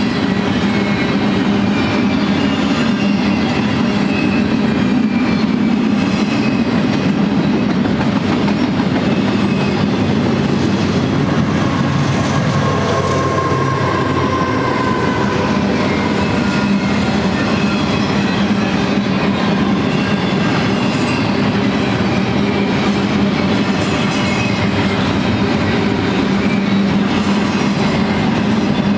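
Double-stack intermodal train's loaded well cars rolling past at close range: a steady, loud rolling noise of steel wheels on rail, with faint high tones coming and going.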